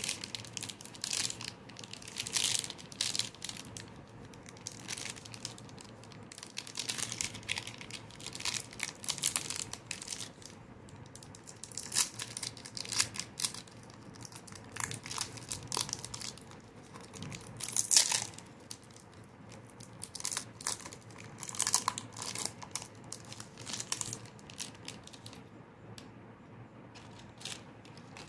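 Foil wrapper of a Hershey's Choco Tubes chocolate bar crinkling and tearing as it is peeled open by hand, in irregular crackly bursts that die away near the end.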